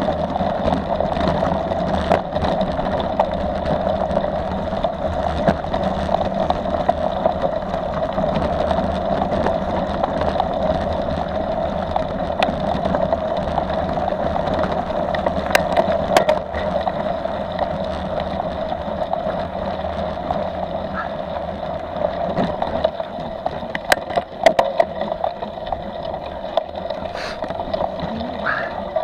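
Mountain bike rolling over a gravel track and then rough grass, heard from a camera mounted on the bike: steady rolling and wind noise with scattered sharp clicks and rattles.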